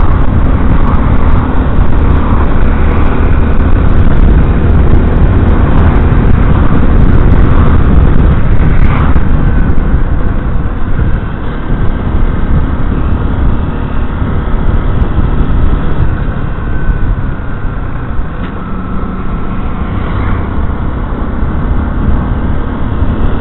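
Yamaha Crosser 150's single-cylinder engine running at road speed with loud wind rushing over the microphone, easing off a little about halfway through as the bike slows.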